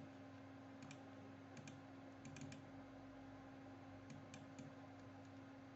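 Near silence with a low steady hum and a few faint, scattered clicks of computer keys being pressed.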